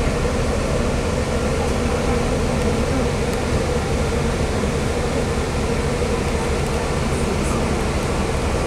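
Steady drone of a city bus heard from inside its cabin, the engine and air conditioning running at an even level.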